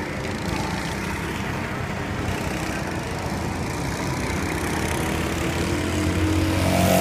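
Racing kart engine running as the kart laps the circuit, a steady buzz that grows louder near the end.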